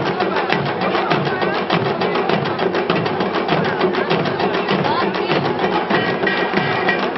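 Ensemble of janggu, Korean hourglass drums, playing a fast, steady rhythm of dense stick strikes.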